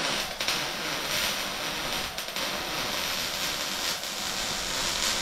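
Electric welding arc burning in joints on a steel roll cage, a steady hiss with a faint fine crackle.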